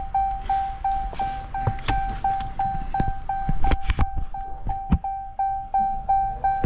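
Car warning chime beeping steadily at one pitch, about three times a second, with scattered sharp clicks and knocks over it.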